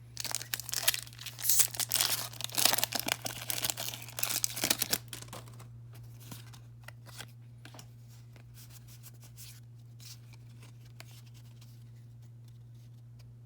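Pokémon card blister pack packaging being torn open and crinkled for about five seconds, then a few scattered light crinkles and clicks.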